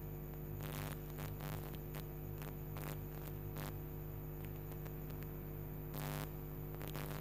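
Steady low electrical hum from the recording, with a few faint clicks.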